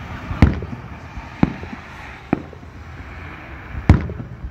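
Aerial firework shells bursting, four sharp booms in a few seconds, the loudest about half a second in and near the end.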